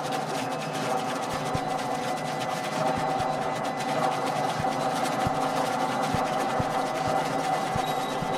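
Steady layered drone of several sustained tones over a low hum, with scattered soft low thuds.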